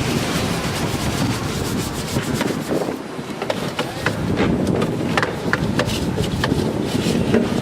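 Rubbing and scrubbing noise, with scattered light clicks and knocks that come more often in the second half.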